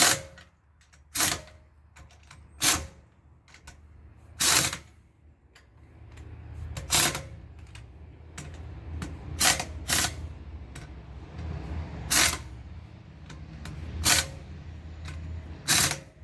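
Pneumatic impact wrench fired in about ten short bursts a second or two apart, snugging the lug nuts onto a wheel without tightening them all the way. A low steady hum joins in about six seconds in.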